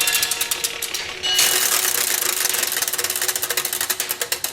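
The Zeitglocke tower clock's clockwork mechanism running: a fast, even clatter of ticks from its gears, growing denser and louder about a second and a half in.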